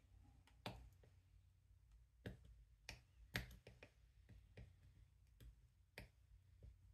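Faint, irregular clicks and scrapes of a small screwdriver tip picking at the label on a plastic camera base, about eight in all, the loudest about halfway through, over a low steady hum.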